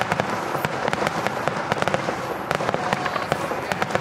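Fireworks finale barrage: many aerial shells bursting in quick succession, a dense run of sharp bangs and crackling that overlap without a break.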